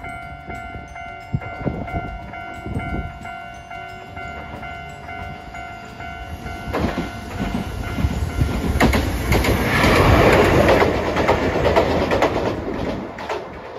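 A level-crossing warning bell dings steadily while a Hiroshima Electric Railway articulated tram approaches. From about halfway through the tram passes close by: its running noise swells to its loudest a few seconds later, with wheels clicking over the rail joints, and then fades near the end.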